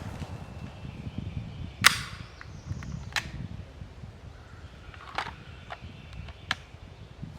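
Gunshots on a shooting range: several sharp, separate reports a second or two apart, the loudest about two seconds in.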